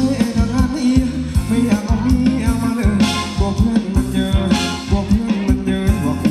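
Thai ramwong dance music from a band: a singer over a steady, even drum beat and strong bass line.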